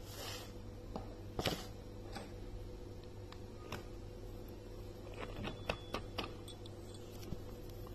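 Light metal clicks and taps of a stainless-steel sev press (sevnazhi) being filled with besan dough and fitted together. There is a louder knock about a second and a half in and a run of clicks around five to six seconds, over a steady low hum.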